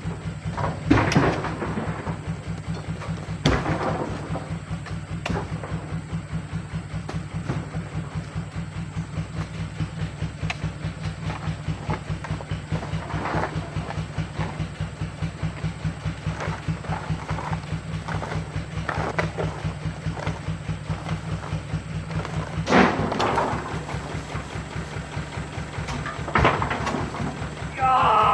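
Truck engine idling with a steady low throb, while oil palm fruit bunches land in its steel dump bed with a loud thud every few seconds.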